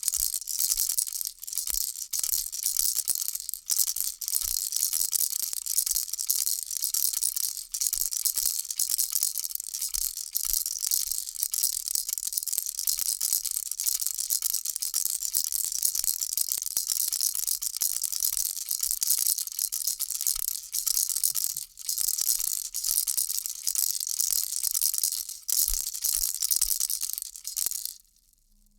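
Baby rattle shaken without pause, a dense, even rattling, which cuts off suddenly near the end.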